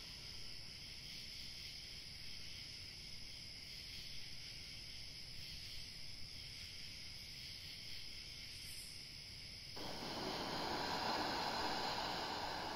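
A steady low hiss with faint high tones, then about ten seconds in a louder rushing hiss sets in abruptly and holds.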